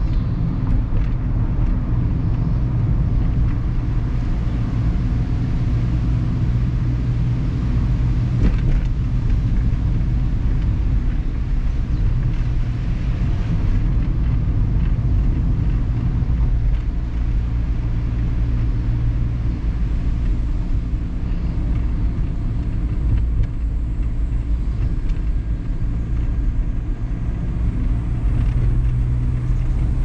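Mazda ND Roadster driving: a steady low engine hum over tyre and road noise. The engine note eases for a while past the middle, then comes back.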